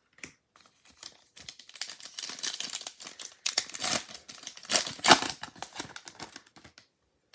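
Foil wrapper of a trading-card pack crinkling and tearing as it is ripped open, a dense run of crackles that is loudest about four and five seconds in.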